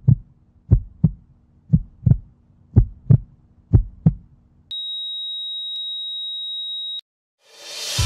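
Heartbeat sound effect: paired lub-dub thumps about once a second, stopping after about four and a half seconds. A flatline tone follows, a steady high beep held for about two seconds that cuts off suddenly, then music fades in near the end.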